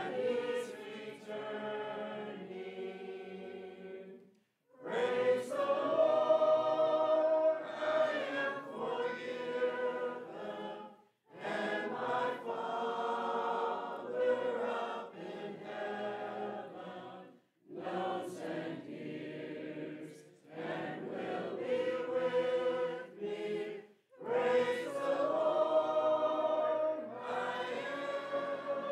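Congregation singing a hymn in four-part harmony a cappella, in phrases with short breaks between them, reaching the final line near the end.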